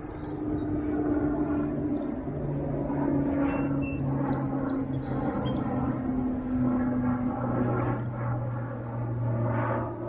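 Garrett AT Pro metal detector giving low, steady electronic tones that hold and step between a few pitches as the coil sweeps, over water splashing around wading feet.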